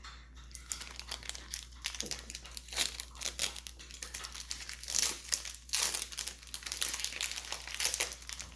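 Foil booster-pack wrapper of Pokémon trading cards crinkling as it is torn open and handled, a dense crackle that starts about half a second in.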